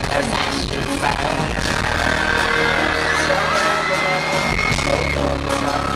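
Live hip-hop music played loud through an arena sound system, with a heavy bass beat and the crowd cheering, a few high screams rising over it in the middle.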